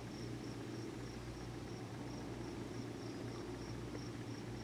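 A cricket chirping steadily, a short high chirp about three times a second, over a faint low steady hum.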